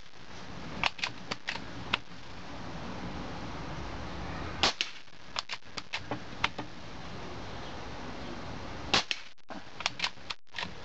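Benjamin Marauder .25 Gen 2 PCP air rifle, regulated at 2000 PSI, firing twice, about four and nine seconds in. Each shot is a sharp crack followed by a run of small clicks as the bolt is cycled to load the next pellet from the magazine. The clicks from the bolt being worked after the previous shot also come near the start.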